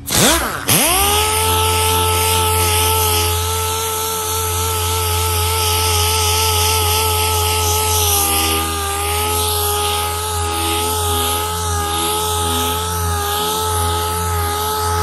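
Pneumatic dual-action orbital sander starting up, its whine rising and settling within the first second, then running steadily while sanding primer with 400-grit paper on a soft interface pad. The pitch dips slightly about halfway and stays there.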